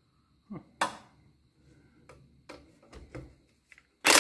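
A few scattered metal clicks and clanks from a socket extension being handled and fitted. Right at the end a cordless impact driver starts up, hammering loudly and rapidly on a battery-box bolt.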